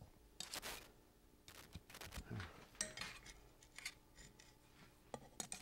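Faint, irregular small clicks and light metallic clinks of a metal hand measuring tool being handled and set against a wooden workpiece held in a lathe's four-jaw chuck, over a faint steady shop hum.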